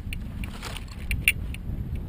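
Binding rods and twigs being worked along the top of a laid hedge by gloved hands, crackling and snapping in a scatter of short sharp clicks, the loudest a little over a second in, over a low steady rumble on the microphone.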